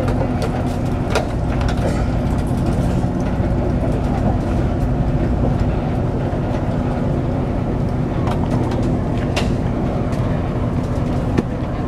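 A vehicle engine idling steadily, with scattered light knocks and clanks over it.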